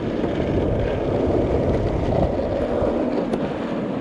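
Longboard skateboard wheels rolling fast over asphalt with a steady rumble, with wind buffeting the microphone underneath.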